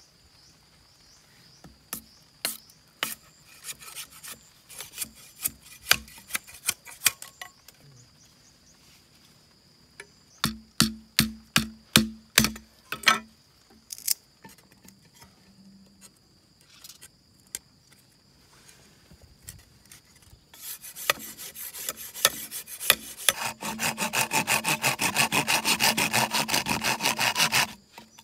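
A curved billhook knife cutting and whittling bamboo, with scattered sharp cuts in the first part and a run of about eight quick strikes, some three a second, about ten seconds in. From about two-thirds of the way through, a hand saw cuts through a green bamboo stalk with fast, steady strokes, pausing once briefly.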